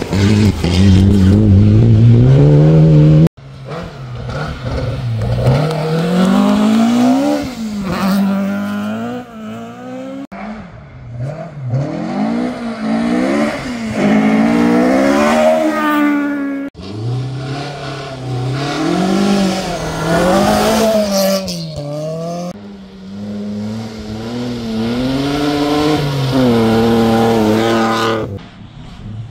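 Historic rally cars, among them a Ford Escort Mk2 and a BMW E30, passing one after another at full throttle. Each engine revs hard, its pitch climbing and then dropping at the gear changes. Abrupt cuts separate the cars.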